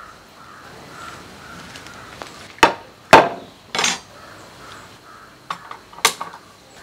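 Several sharp knocks of metal kitchen utensils, among them a perforated skimmer, being set down on a wooden table, with the loudest about three seconds in and a few lighter ones near the end.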